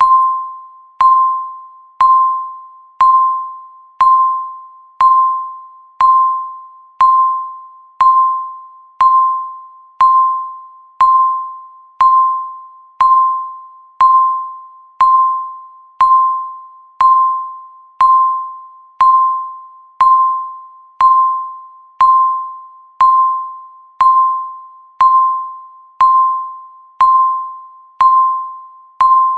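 Countdown timer beeping once a second: a sharp, ringing electronic tone that fades away before the next beep.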